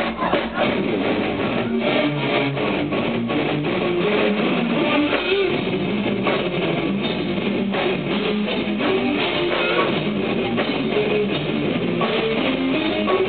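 Metal band playing live: electric guitars and bass guitar over drums, with a steady drum beat.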